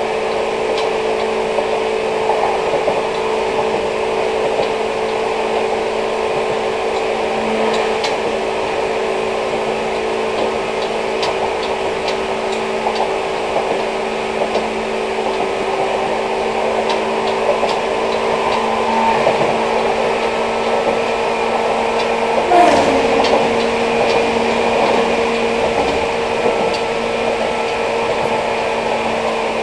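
Running sound of a Seibu New 2000 series electric train at high speed, heard from inside the car. It is a very loud, steady hum over wheel-and-rail noise, with scattered clicks and knocks. A brief tone drops in pitch a little over twenty seconds in.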